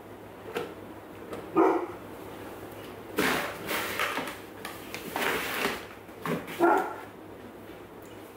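Two short, sharp dog barks about five seconds apart, between them the rustling of a paper flour bag as a plastic measuring cup scoops flour out of it.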